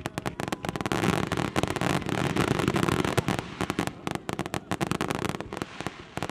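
Aerial fireworks going off in a rapid barrage of overlapping bangs and crackles, densest from about one to four seconds in.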